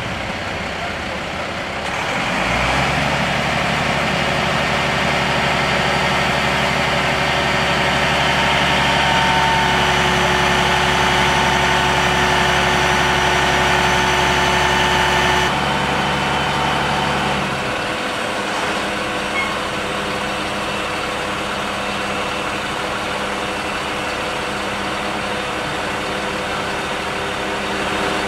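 Diesel engine of a Mercedes-Benz fire engine idling steadily. A louder, steady machine hum joins about two seconds in and drops away after about fifteen seconds.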